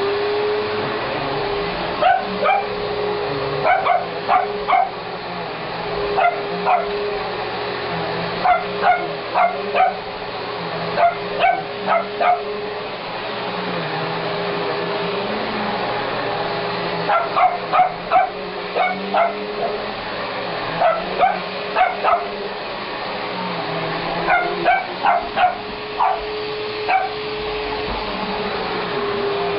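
Vacuum cleaner motor running with a steady hum, winding down right at the end as it is switched off, while a small Shih Tzu dog barks in short quick bursts of several barks again and again, with some whimpering yips.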